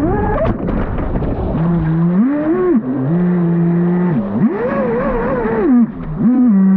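Traxxas Spartan RC boat's brushless electric motor whining and gliding up and down in pitch several times as the throttle changes. Water rushes and splashes against the hull for about the first second and a half.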